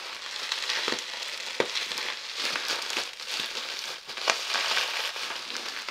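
Bubble wrap crinkling and crackling as it is pulled and ripped at by hand, with a few sharp clicks.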